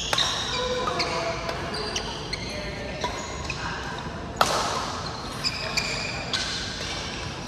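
Badminton play in an echoing sports hall: sharp racket strikes on the shuttlecock about once a second, the loudest about four and a half seconds in, with short high squeaks of court shoes on the mat between them.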